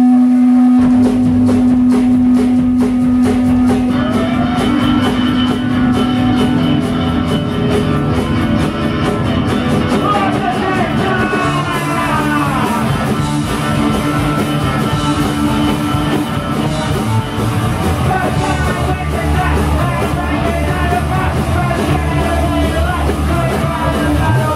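Punk rock band playing live: loud electric guitars, bass and drums, with a held note at first and singing coming in about four seconds in.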